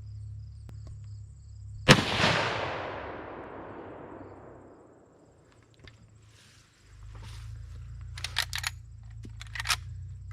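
A single rifle shot from a .35 Marlin lever-action deer rifle, a sharp crack followed by a long rolling echo that fades over about three seconds. A few sharp clicks follow near the end.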